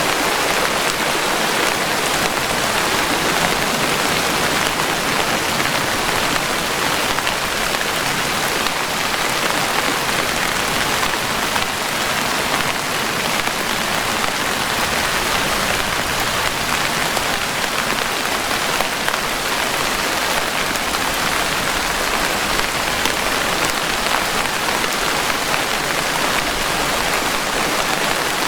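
Steady, even rainfall: a continuous hiss of rain with no thunder.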